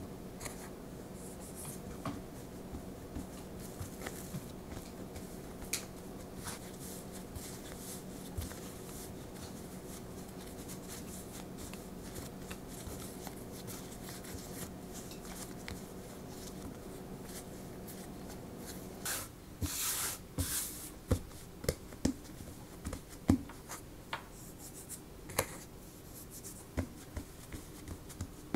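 Hands kneading and working soft bread dough on a floured countertop: soft rubbing and squishing. In the last third there are sharp taps and thumps as the dough is handled and pressed flat. A steady low hum sits underneath and stops about two-thirds of the way through.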